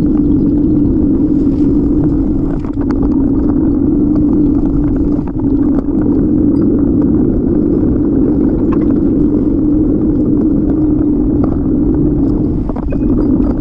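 Steady rumble of wind and road vibration on the microphone of a camera riding on a moving bicycle, with scattered small clicks and rattles.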